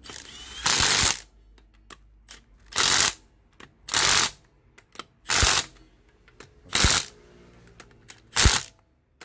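Milwaukee Fuel brushless cordless impact wrench hammering wheel lug nuts tight, in six short bursts of about half a second each, one every second or so.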